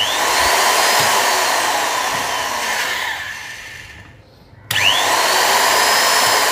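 Corded electric drill's motor switched on, spinning up with a rising whine and running at full speed, then winding down when switched off about three seconds in, and starting up again with another rising whine about a second and a half later. The drill running on the socket shows the newly wired socket is live and carrying load.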